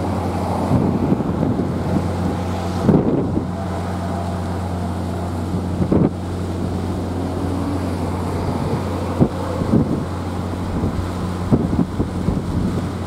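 Wind buffeting the microphone in gusts, over a steady low hum, with a few brief thumps.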